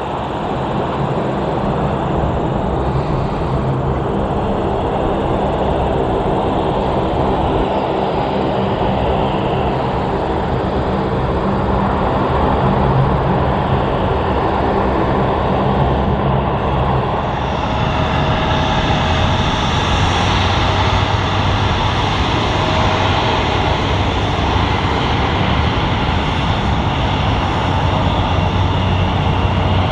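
Dash 8-400 turboprop taxiing, its propellers and engines making a steady, loud drone. About halfway through it gives way to an Embraer regional jet taxiing, with a steady engine whine over a rushing hiss.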